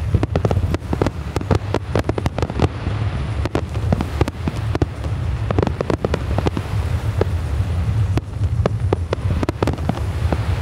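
Fireworks bursting in a dense, irregular run of sharp bangs and crackles, thickest near the start, around the middle and near the end, over a steady low rumble.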